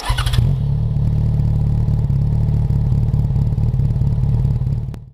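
Motorcycle engine running loud and steady at a constant speed, with a brief bright burst of noise at the very start, fading out near the end.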